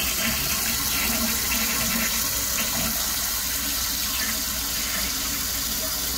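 Toilet flushing: the tank's water rushing steadily down through the flush valve as the tank empties. The tank's flapper is broken.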